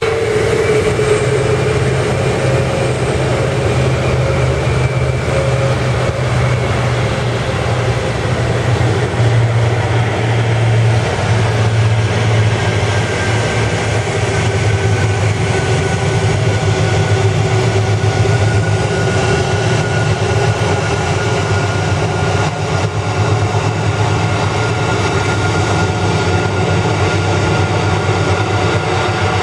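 Boeing 747-400 freighter's four turbofan engines running at taxi power: a steady loud rumble with a thin whine that slowly falls in pitch.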